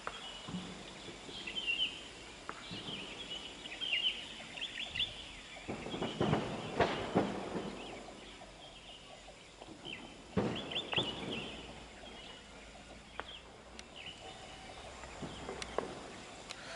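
Small birds chirping and twittering, with two louder rough, crackling outbursts made of rapid strokes, about six and ten seconds in.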